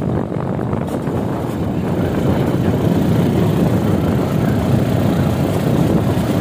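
Motorcycle pulling a loaded canopied sidecar cart, its engine running steadily with road noise as it rides along.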